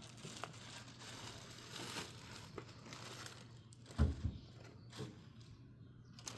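Packaging being handled: crinkling and rustling with scattered small clicks, then a dull, heavy thud about four seconds in and a softer knock a second later.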